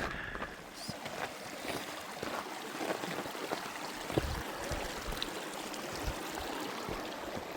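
Mountain creek running steadily, a continuous rush of water, with a few soft low thumps from footfalls on the trail.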